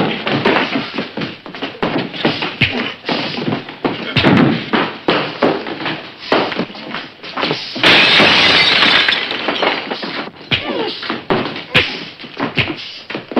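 Film fistfight sound effects: a quick run of punches, thuds and knocks as bodies hit furniture, with a loud smashing crash about eight seconds in that lasts more than a second.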